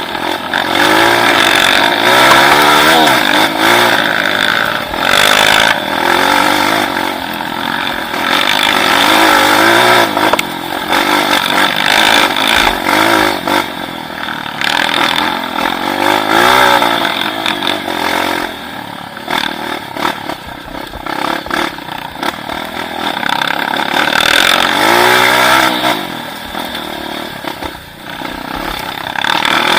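Motorcycle engine running hard, its pitch rising and falling again and again as it revs up and back off.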